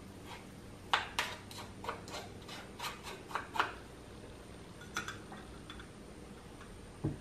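Wooden spoon scraping and knocking canned tuna out of a fine-mesh stainless strainer into a glass bowl: a quick run of about ten taps and scrapes, then a couple more. Near the end there is a low thud as the strainer is set down on a small glass bowl.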